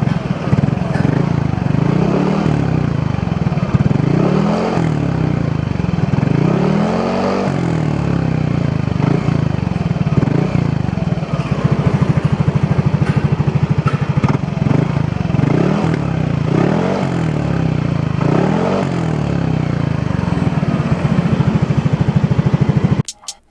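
Yamaha Aerox scooter's single-cylinder engine running through a Navin aftermarket racing exhaust, idling with repeated short throttle blips that rise and fall in pitch every couple of seconds. It stops abruptly just before the end.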